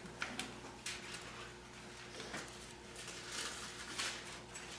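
Pages of a Bible being leafed through and turned: several soft, short paper rustles and flicks at irregular intervals.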